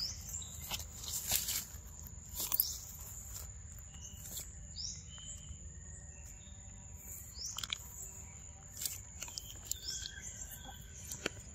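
Outdoor ambience of insects droning on one steady high note, with short falling bird chirps here and there. A few sharp clicks stand out, the loudest in the first three seconds.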